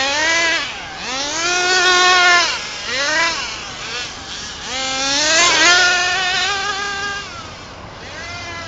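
HPI Rush Evo nitro RC truggy's two-stroke glow engine revving up and down in repeated bursts as the truck races around, its high-pitched tone rising, holding and dropping away. It fades off near the end.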